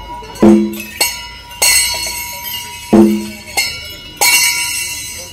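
Metal bells ringing in a repeating pattern: bright clangs every half second to a second, each ringing on after the strike, and a deeper bell tone twice, about two and a half seconds apart.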